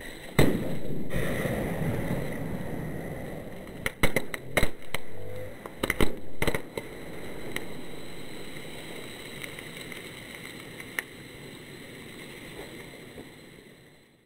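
Sodium metal reacting violently on river water. A sudden loud burst about half a second in trails off over a few seconds, then several sharp bangs come close together between about four and seven seconds in. A couple of fainter pops follow as the reaction dies away.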